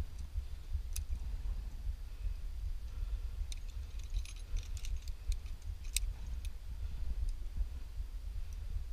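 Light metallic clicks and jingles of climbing gear (carabiners on the harness rack) as the climber moves, bunched about three and a half to six and a half seconds in, with a single sharper click about a second in. Under it, a steady low rumble of wind on the microphone.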